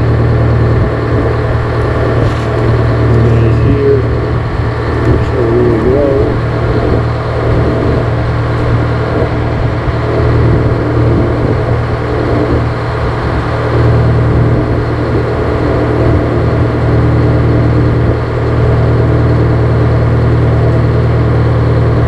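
GM 4-71 two-stroke supercharged diesel engine (a Detroit Diesel "Screaming Jimmy") running steadily at idle with no load while it warms up.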